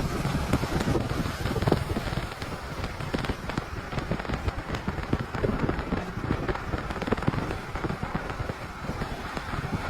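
Rain pelting a moving car in a wind-driven downpour: a dense, irregular crackle of drops over a steady low rumble of wind and road.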